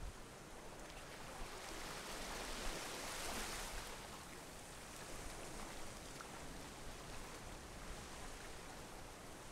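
Small waves washing gently up onto a sandy beach in a sheltered rocky cove: a faint, steady wash of water that swells a little between about two and four seconds in.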